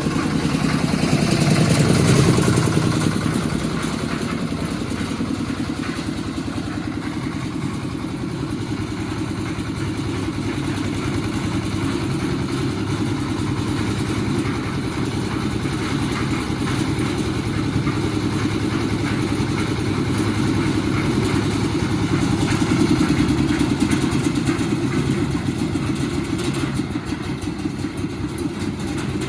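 Engine running steadily, swelling louder about two seconds in and again a little over twenty seconds in.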